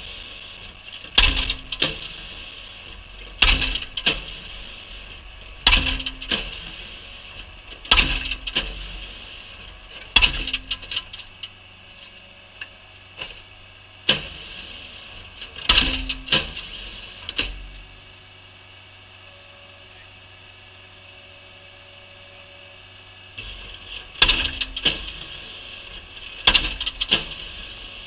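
Skid-steer-mounted hammer post driver striking the top of a wooden post with slow, single heavy blows, about one every two and a quarter seconds, each a sharp crack with a short clatter after it. The skid steer's engine runs steadily under the blows. The blows stop for about six seconds two-thirds of the way through, then resume.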